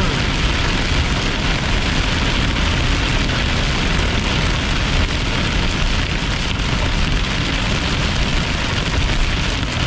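Heavy thunderstorm rain drumming steadily on a moving car, over a low road and engine rumble.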